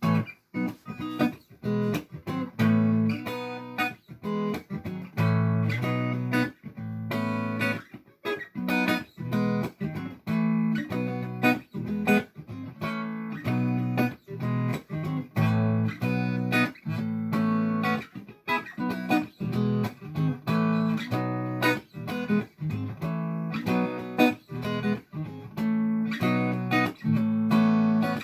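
Background music: plucked guitar notes in a quick, steady rhythm.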